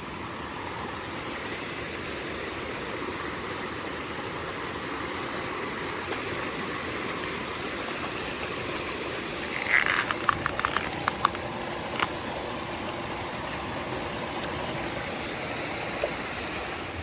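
Steady rush of a mountain stream flowing over rocks. About ten seconds in, a short burst of sharp clicks is heard, and single clicks follow a couple of times later.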